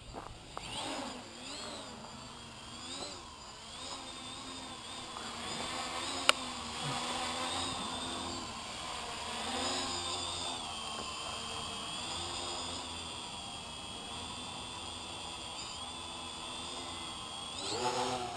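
X525 quadcopter's motors and propellers whining in flight, the pitch rising and falling as the throttle changes. A single sharp click about six seconds in.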